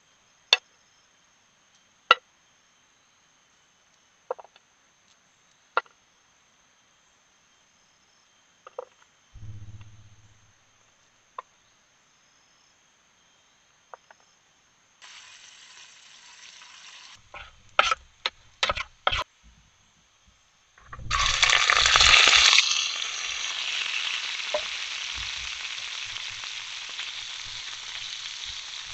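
A few scattered sharp clicks and knocks, then about two-thirds of the way in food goes into hot oil with a sudden loud sizzle that settles into steady frying.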